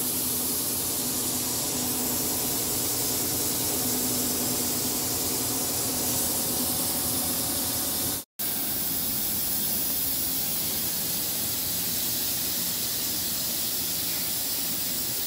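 CNC vertical milling machine running while milling a steel gear segment: a steady hiss with a faint low hum that comes and goes during the first half. The sound drops out for an instant a little past halfway.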